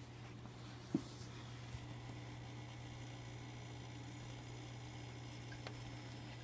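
Steady low electric hum of running aquarium equipment, with one sharp click about a second in and a fainter tick near the end.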